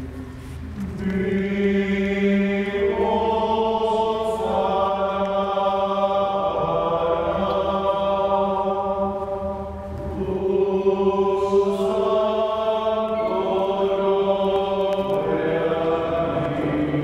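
Choir singing a slow, chant-like liturgical hymn in long held notes, in two phrases with a brief dip for breath about ten seconds in.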